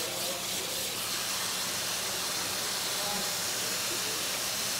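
Tap water spraying steadily from a sink's spray nozzle onto sea squirt pieces in a plastic basket, a steady hiss.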